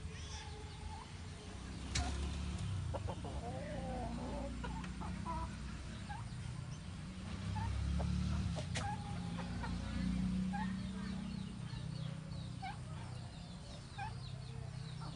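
Poultry, a chicken and turkeys, clucking and giving many short, soft chirping calls while pecking grain. A low rumble runs underneath and swells twice past the middle, and there are a couple of sharp clicks.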